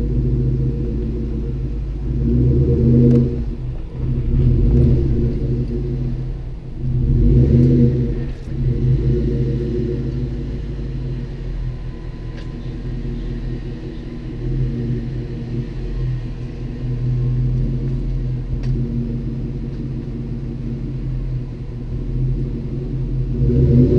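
2003 SVT Cobra Mustang's supercharged 4.6-litre V8 running at low speed with a steady rumble, swelling briefly with light throttle three times in the first eight seconds.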